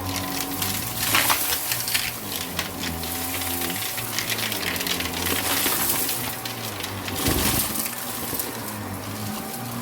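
Vacuum cleaner running, its motor hum rising and falling slightly as it sucks up grit and debris that click and rattle up the hose.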